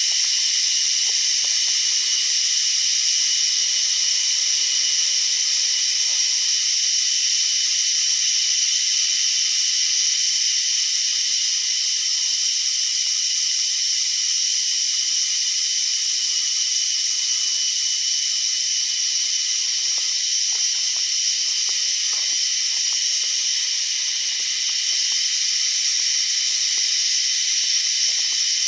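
Cicada chorus: a steady, unbroken high-pitched buzz.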